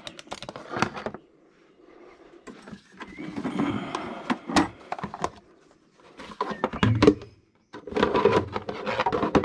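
Hard plastic parts of a Toyota GR Yaris's stock air intake box knocking, clicking and scraping as the airbox lid and housing are worked loose and lifted out by hand, in several bursts with quiet gaps between. A few sharp clicks near the start.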